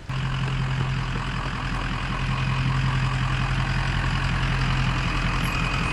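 A truck engine idling steadily, an even low hum that starts abruptly.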